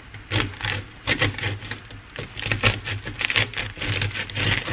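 Serrated bread knife sawing back and forth through the crisp crust of a freshly baked loaf of Dutch oven French bread: a steady run of rasping scrapes, about two to three strokes a second.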